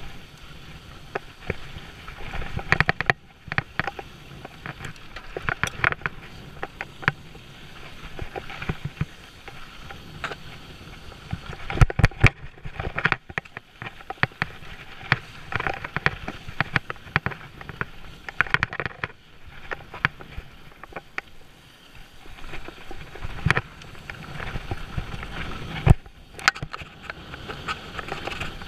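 Mountain bike riding downhill over a dirt and rock trail: tyres rolling over dirt and stones, with frequent sharp knocks and rattles from the bike over bumps. The loudest hits come about twelve seconds in and again near the end.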